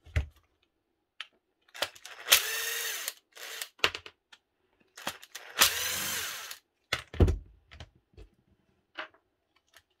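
Cordless drill-driver backing screws out of a drill's housing in two short runs of about a second each, its motor whine dipping and then rising as each run starts. Light clicks of parts being handled come between the runs.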